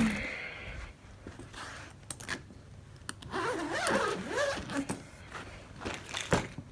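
Luggage being handled while packing: a fabric travel bag rustling and shifting, with a few sharp clicks from its zips and buckles.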